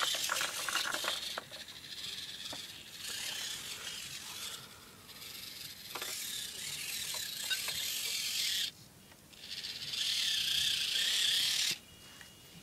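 Losi Micro Trail Trekker RC crawler's small electric motor and gear train whining in spurts of one to three seconds as it crawls over rocks, with a short break about nine seconds in.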